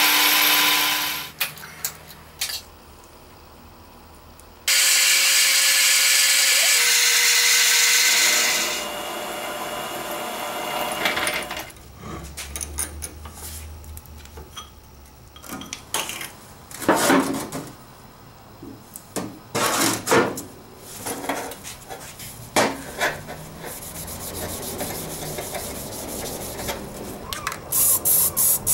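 Workshop machining sounds: a metal lathe drilling into a steel tube with a twist drill, followed by stretches of machine noise and many sharp metal knocks and clanks as the handle is worked in a drill-press vise. Near the end come short bursts of hiss from a spray-paint can.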